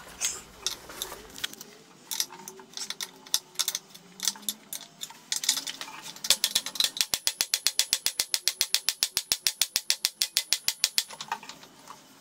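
Ratchet wrench clicking as the lathe's electric-motor mounting bolts are worked to tension the drive belt. A few scattered clicks come first, then a fast, even run of about eight clicks a second for several seconds that stops shortly before the end.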